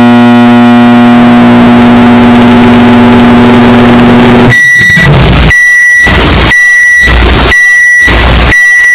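Microwave oven running with a steady, extremely loud hum for about four and a half seconds, then beeping five times, about once a second, as it finishes.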